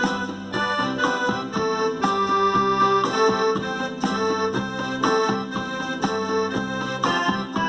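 Accordion-led music with a steady, even beat.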